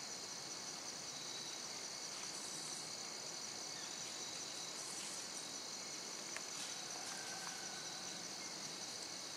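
Faint, steady high-pitched drone of an outdoor insect chorus, with a few small clicks from fingers handling the small valve parts.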